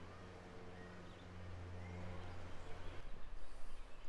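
A steady low hum that cuts off abruptly about three seconds in, with faint bird chirps over it; after the cut there is a rougher, uneven rustling noise.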